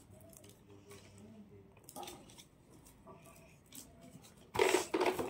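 Gift wrap on a small box being handled and peeled open, mostly quiet, with a louder burst of paper crinkling about four and a half seconds in. Faint voices sound in the background.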